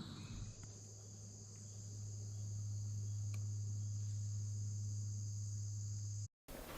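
Steady chorus of crickets, a continuous high-pitched trill, over a steady low hum. The sound cuts out abruptly for a moment near the end.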